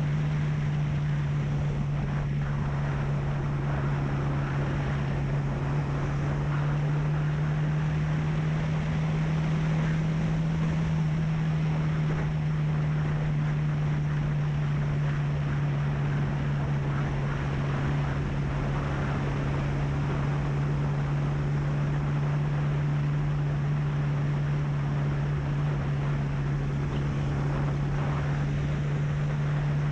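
Honda CB300F's single-cylinder engine running at a steady cruise, a constant drone, with wind rushing over the microphone.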